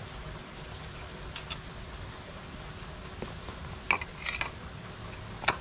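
Kitchen knife blade clinking and scraping against a ceramic bowl: a few sharp clinks about four seconds in and one louder clink near the end, over a steady low background rumble.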